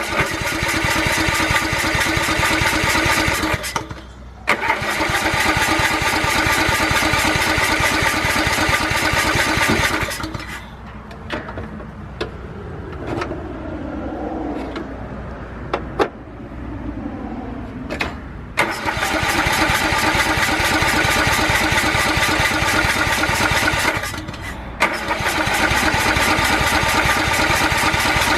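Riding lawnmower's electric starter cranking the engine over in long, rapidly pulsing bursts with short pauses between, the engine not catching. A quieter stretch in the middle holds a few clicks.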